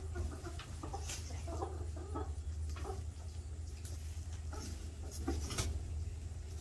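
Hens clucking softly in short, scattered calls, with a few sharp clicks and a steady low hum underneath.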